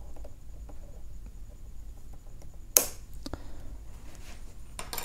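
Faint ticks of a nylon cable tie and wires being handled, then one sharp snip about three seconds in as side cutters trim the cable tie's tail, followed by a couple of lighter clicks near the end.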